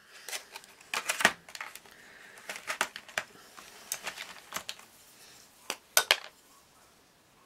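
Plastic clicks and clatters from handling a clear plastic tray of Gelatos colour sticks and a metal palette knife, with a stick taken out of the tray. Scattered sharp knocks, the loudest about a second in and about six seconds in.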